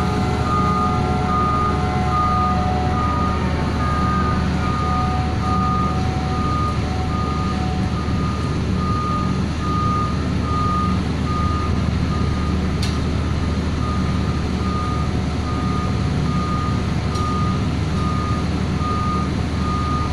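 Vehicle warning beeper sounding a steady series of short high beeps, a bit more than one a second, over an engine running steadily. A higher whine slides down and fades in the first few seconds.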